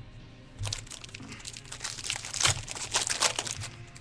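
Foil wrapper of a baseball card pack crinkling and tearing as it is opened by hand: a run of sharp crackles from about half a second in until near the end.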